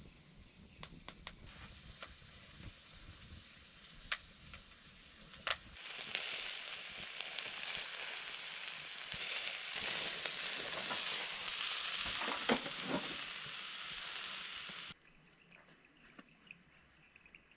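Sausage sizzling in a hinged grill basket over the glowing coals of a wood fire, a steady hiss with pops and crackles from the fire. It starts about six seconds in and cuts off suddenly near the end.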